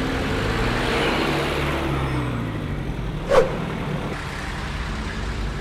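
Four-wheel-drive vehicle on the move: steady engine and road noise, with a single sharp knock about three seconds in.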